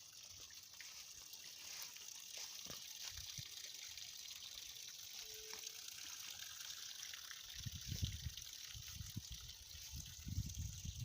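Steady rush of running water. Low rumbling thumps join in during the last few seconds.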